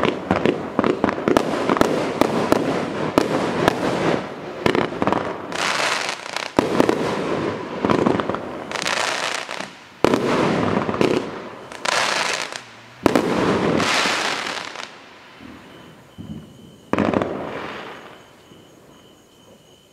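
Celtic Fireworks Mother Load, an 85-shot 20 mm firework cake, firing its last shots. Dense rapid bangs and crackles for the first few seconds give way to single shots, each bursting into a long crackling spray every second or two, and these die away near the end.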